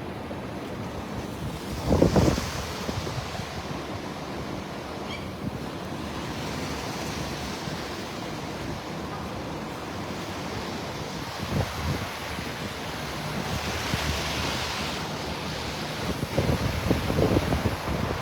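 Wind buffeting a handheld microphone over steady outdoor noise, with louder rumbling gusts about two seconds in and again near the end.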